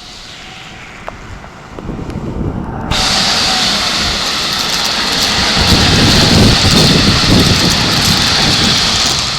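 Keikyu Line train passing close by: a low rumble building, then a sudden loud rushing noise of the train going past that holds for several seconds.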